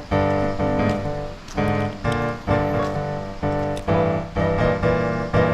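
Background piano music with chords struck at an even pace.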